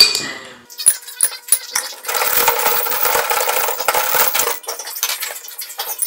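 Small steel ball bearings dropped into a glass jar, a few sharp clinks in the first two seconds, then rattling and rolling around against the glass for a couple of seconds as the jar is swirled.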